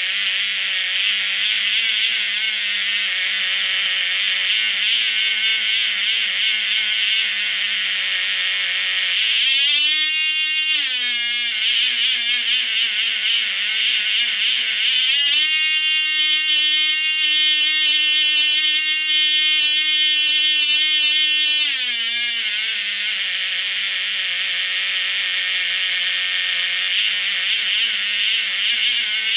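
Cox Medallion .051 two-stroke glow engine with an RC throttle carburettor running with a painfully high-pitched whine. About ten seconds in the throttle is blipped open for a second. About fifteen seconds in it is opened up again and held at a higher pitch for about six seconds, then drops back to the lower speed. The carburettor responds cleanly to each throttle movement.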